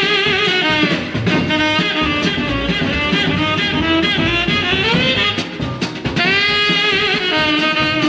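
Instrumental break of a 1953 jump-blues/R&B band record, heard from a 78 rpm disc: a saxophone leads with wavering, held notes over a band and drum kit.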